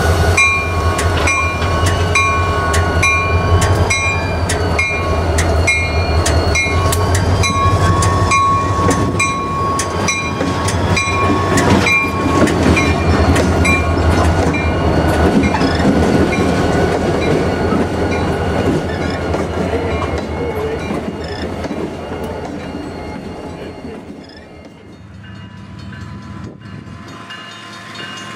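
CSX freight locomotives, EMD GP40-2 diesels, rumble past slowly with wheels clicking over the rails, while a grade-crossing bell dings steadily through the first half. The rumble fades away as the train moves off, and a faint steady tone rises near the end.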